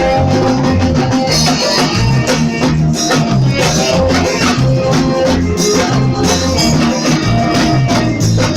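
Instrumental band music: a moving bass line, guitar and shaker-type percussion over a steady beat.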